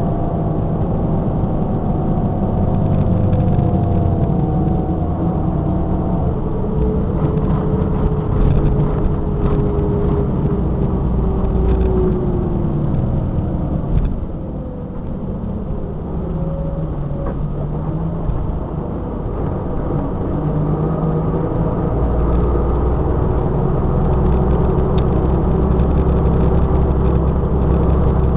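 Scania K94 IB bus's diesel engine heard from inside the cabin, running under load with its pitch gliding down in the first half. It eases off briefly about halfway, then picks up again and runs steadily.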